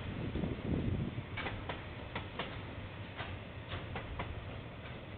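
Train wheels clicking over a rail joint, mostly in pairs about a quarter-second apart, as axles pass. A low rumble is strongest in the first second and then fades as the train draws away.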